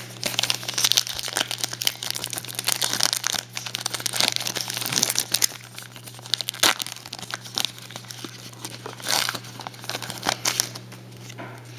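Wrapper of a 2010 Topps Allen & Ginter trading-card pack being torn open and crinkled by hand, a dense run of crackles that eases off near the end.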